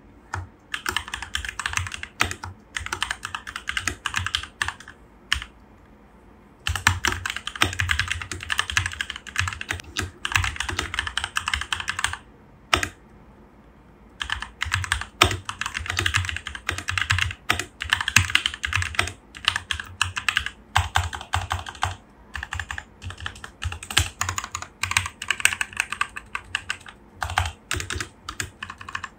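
Keychron K2 Version 2 mechanical keyboard with Gateron Brown switches and a plastic frame, typed on in quick runs of key clicks with short pauses.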